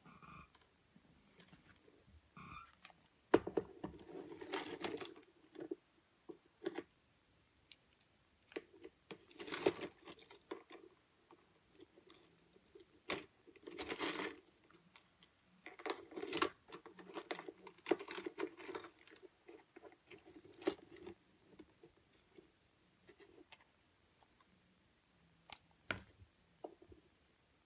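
Small tools and camera parts being handled: scattered clicks, taps and light rattles in a few short clusters with quiet gaps between.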